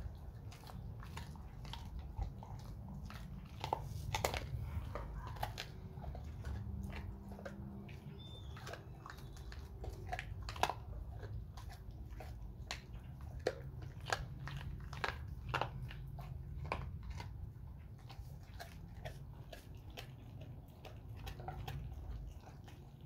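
Dog chewing and gnawing a cooked beef bone: irregular sharp cracks and crunches of teeth on bone, some louder than others.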